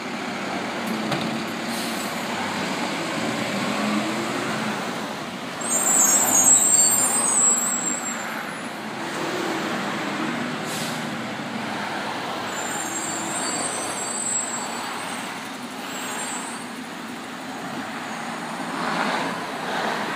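Automated side-loader garbage truck's diesel engine running, rising in pitch now and then as the lift arm works and the truck moves off. Loud air-brake hisses come about six seconds in and again, weaker, around thirteen seconds.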